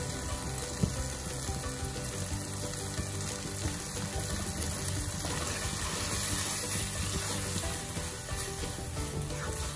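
Eggs and flat rice noodles sizzling in a hot wok while a silicone spatula scrambles and stirs them, a steady frying hiss with one sharp knock about a second in.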